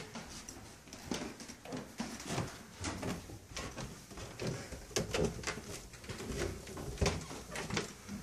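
Irregular footsteps with scattered knocks and rustling, roughly one or two short thuds a second and no steady sound beneath.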